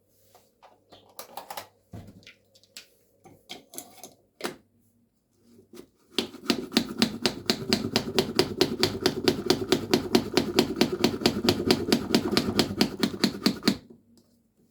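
Rapid, even clicking or tapping at about six strokes a second for roughly eight seconds, starting about six seconds in, after a few scattered light clicks and knocks.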